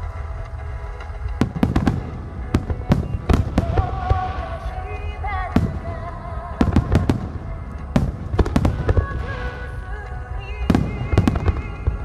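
Fireworks display: clusters of sharp shell bursts and launch bangs, with a lull of a couple of seconds in the middle, and music playing under them.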